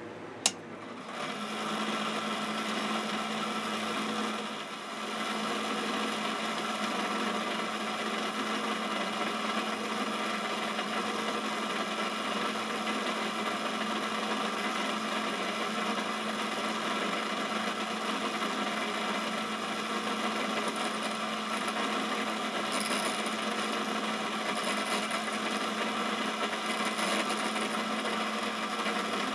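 A Quorn tool and cutter grinder's cup wheel grinding an end mill: after a sharp click, a steady grinding hiss over the motor's hum starts about a second in, dips briefly around four seconds in, and runs on.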